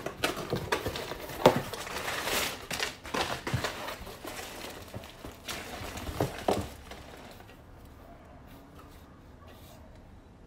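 Packaging and a cardboard box being handled as items are taken out: rustling and crinkling with several sharp clicks and knocks, dying down about seven seconds in.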